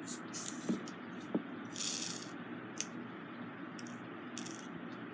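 Small diamond-painting drills poured and shaken into a plastic sorting tray, rattling in several short bursts, the longest about two seconds in.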